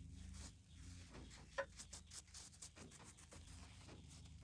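Spoon spreading a brown sugar and butter paste over a slice of bread, heard as a run of soft scratchy scrapes, with a small click about a second and a half in.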